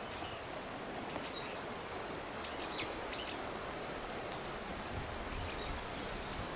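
Outdoor woodland ambience: a steady background hiss with a small bird giving short, high chirps about five times.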